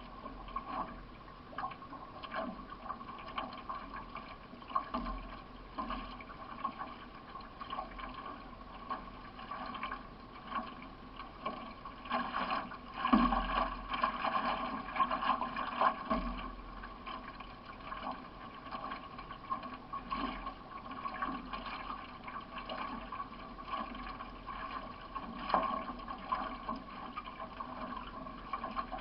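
Solo racing canoe under way: paddle strokes pulling through the water again and again, with splashing and drips and water washing along the hull, loudest about halfway through.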